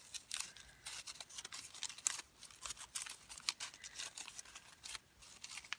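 Colored origami paper rustling and crinkling in irregular, faint crackles as folded units are handled and slid into each other's pockets.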